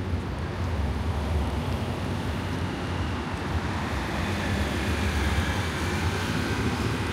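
Steady city street noise, mostly a low traffic rumble, with faint higher tones in the second half.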